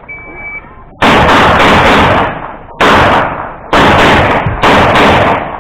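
A short high beep, the shot timer's start signal, then four loud gunshots: the first about a second after the beep, the next three in quicker succession, each echoing on for about a second.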